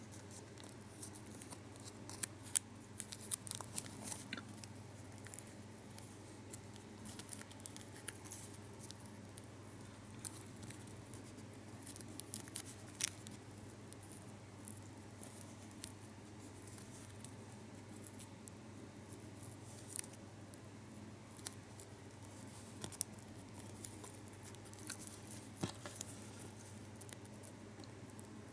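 Small foil-backed Lotte Xylitol gum wrapper being folded and creased between fingertips: faint, irregular crinkles and ticks over a steady low hum.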